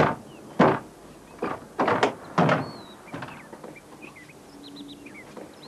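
Knocking and rattling at a wooden front door: about five sharp bangs in the first three seconds, then faint bird chirps.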